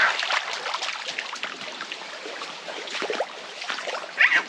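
Shallow water splashing and sloshing, with a short high-pitched vocal cry near the end.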